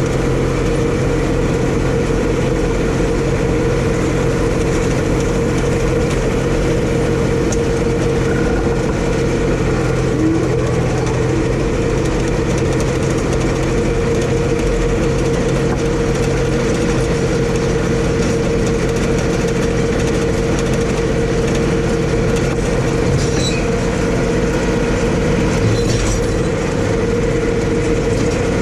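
Tractor engine running at a steady speed, a constant drone that does not change, while baling hay.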